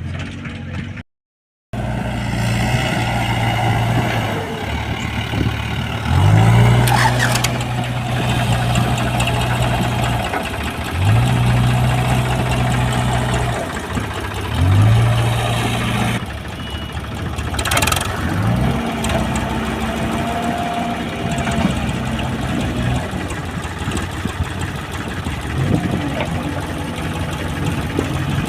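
Diesel engine of a JCB 3DX backhoe loader running, revving up about four times and holding the higher speed for a few seconds before dropping back, as it works under hydraulic load while digging. The sound cuts out briefly about a second in.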